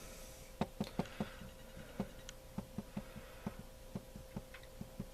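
A string of short, light clicks and taps at irregular intervals, two or three a second, over a faint steady hum.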